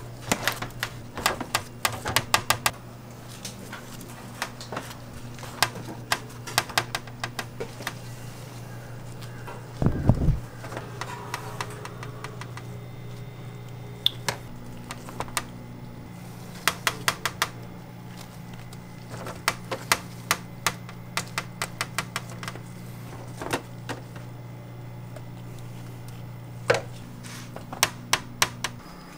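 Quick runs of clicks and taps of a spatula, buns and gloved hands against stainless steel pans, a sheet tray and its wire rack while burger buns are laid out and spread with sauce, over a steady low hum. One low thump about ten seconds in.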